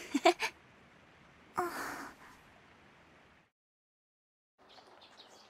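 Short wordless sounds from a girl's voice, once at the start and again about a second and a half in, then a fade to silence at a scene change. Faint background sound returns near the end.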